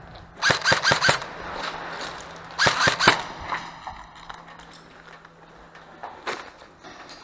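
Airsoft guns firing two short strings of quick shots, the second about two seconds after the first, then a single shot near the end.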